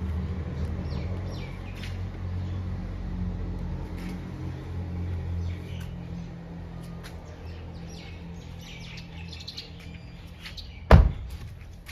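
Birds chirping, over a low steady hum. About eleven seconds in, a car door is shut with a single loud thump.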